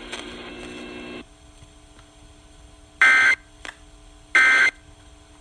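Emergency Alert System end-of-message signal from a weather radio: two short screeching bursts of SAME data tones, about a second and a half apart, marking the end of the tornado warning broadcast. A short stretch of radio hiss cuts off about a second in, and a faint hum runs underneath.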